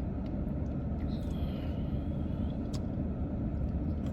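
Steady low rumble of a car engine idling, heard from inside the cabin, with a few light clicks. A faint high whine drifts slightly downward about a second in.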